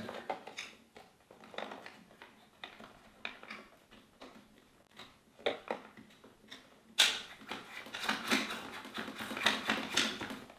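Hands working behind a motorcycle's dashboard fastening the nut on the back of a 12V power outlet: scattered small plastic clicks and taps, turning into denser scraping and rustling about seven seconds in.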